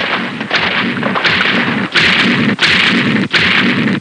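Cartoon sound effect of a giant creature's heavy footsteps: a booming thud about every two-thirds of a second, over a continuous rumble.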